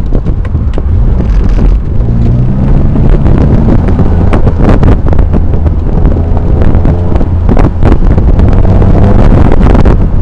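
Twin-turbocharged 2004 Nissan 350Z's 3.5-litre V6 driven hard, its revs rising and falling, with heavy wind buffeting on the microphone.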